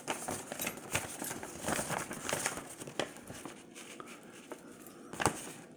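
Old paper documents rustling and crinkling as they are handled and unfolded, with small irregular clicks and one sharper click about five seconds in.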